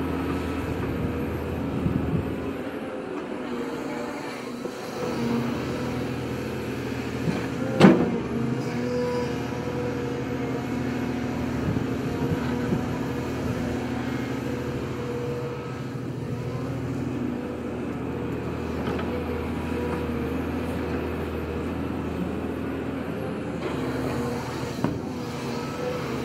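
Volvo EC240B crawler excavator's diesel engine running steadily under load while it digs and swings soil, with a single sharp knock about eight seconds in.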